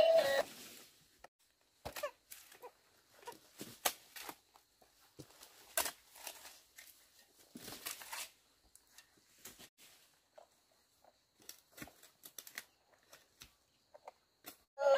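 Quiet, irregular clicks, taps and rustles, a few to several a second, with short gaps between, as small things are handled; background music cuts off at the start.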